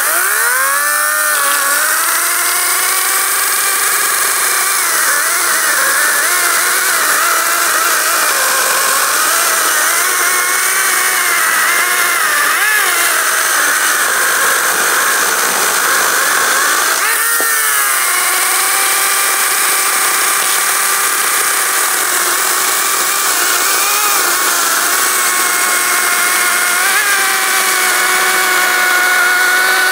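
ES Industry LCHS1454 54V cordless electric chainsaw, with a 14-inch bar and Oregon chain, cutting through a 20 cm log. The motor whine rises as it spins up at the start, then runs steadily with its pitch wavering as the chain bites into the wood; about seventeen seconds in the pitch dips and climbs again as the cut carries on.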